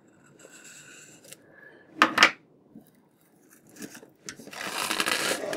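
A knife slicing the shrink wrap on a cardboard token sheet: faint scratching, then a short sharp rasp about two seconds in, and a longer rustle of the plastic film near the end.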